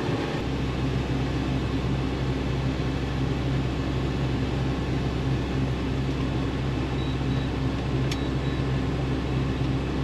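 Combine harvester running, a steady low machine hum with constant droning tones.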